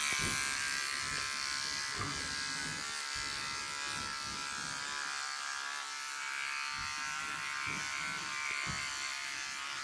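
Electric hair clippers running steadily while they trim short hair around and behind the ear, touching up spots missed in a buzz cut.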